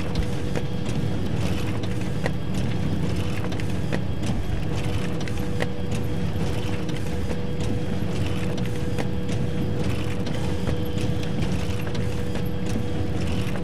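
Photocopier running through copies: a steady mechanical hum, with a click and a short whir repeating evenly a little under two seconds apart.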